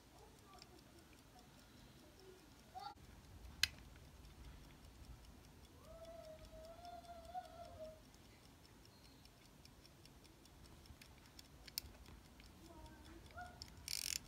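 Vintage Omega pocket watch ticking faintly, fast and even, with a couple of sharp clicks along the way. Near the end, a short burst of ratcheting clicks as the crown is turned to wind it.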